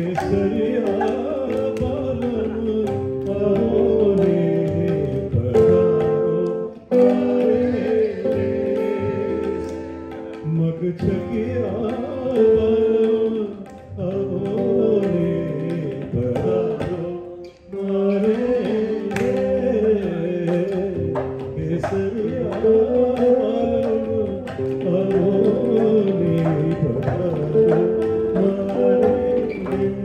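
Live Indian-style music: tabla and electric guitar playing, with a man singing long, gliding notes into a microphone. The music briefly drops out twice.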